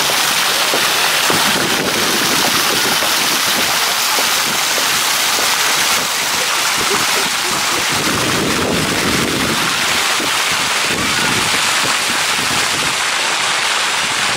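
Water jets of a floor fountain spraying up from stone paving and splashing back down, a steady hiss of falling water.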